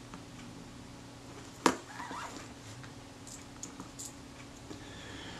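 Small metal camera shutter parts handled on a workbench mat: one sharp click nearly two seconds in as the Synchro-Compur shutter's metal front cover plate is set down, then a few faint ticks as the shutter body is picked up and turned over.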